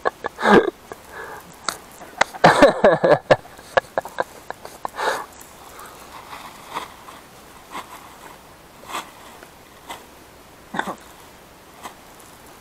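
People laughing, with wheezing, breathy bursts in the first few seconds, then scattered soft knocks and rustles.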